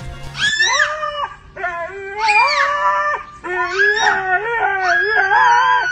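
Siberian husky howling: three long howls in a row that rise and fall in pitch and waver.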